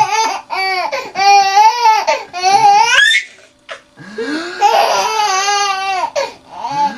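A small child laughing hard in long, high-pitched bouts of rising and falling laughs, breaking off for a moment about halfway through before laughing again.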